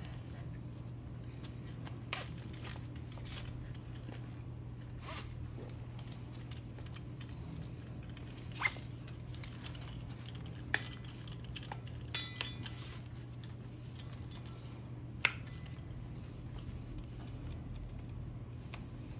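Stainless steel rigging hardware on sidemount tank webbing, bolt snaps and rings, clinking and clicking as it is handled: a handful of short separate clicks several seconds apart, one ringing briefly, over a steady low hum.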